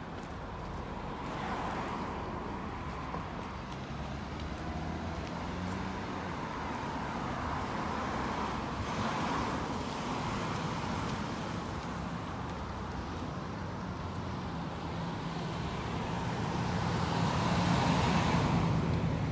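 Car and road traffic noise: a steady low engine hum, with passing vehicles swelling and fading about three times, the loudest near the end.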